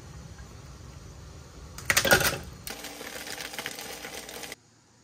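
Food frying in a hot pan: a loud burst of sizzling and crackling about two seconds in, then steady crackling that cuts off suddenly near the end.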